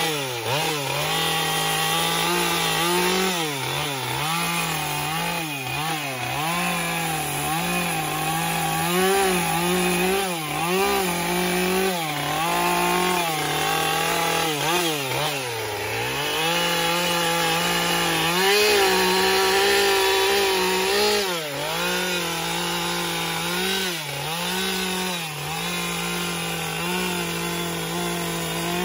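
Husqvarna two-stroke chainsaw carving into a log, the engine revving up and dropping back every second or two as the chain bites and lifts off the wood.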